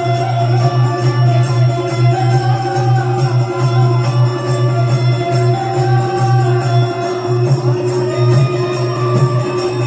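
Devotional jagran bhajan music, instrumental. Held melody notes play over a strong steady low drone, with a fast, even jingling percussion rhythm.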